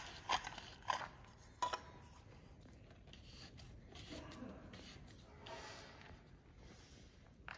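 Handheld grain moisture meter being handled with a sample of flax seed: three sharp clicks in the first two seconds, then faint scraping and rubbing of seed and plastic.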